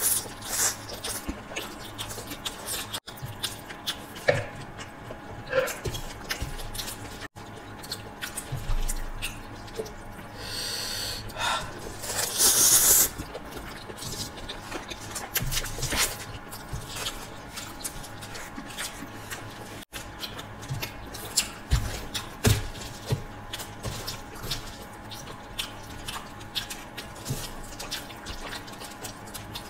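Close-up eating sounds of saucy noodles in Manchurian gravy: wet slurping and chewing with small fork and foil clicks, and a longer, louder stretch about 12 seconds in.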